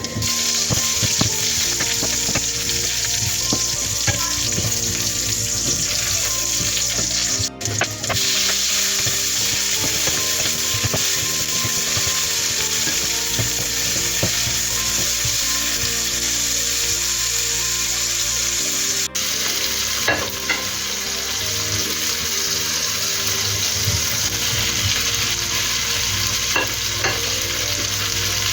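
Pork and mushrooms frying in a pan, sizzling steadily, with short clicks from a utensil stirring them. The sizzle cuts out briefly twice, about a third and two-thirds of the way through.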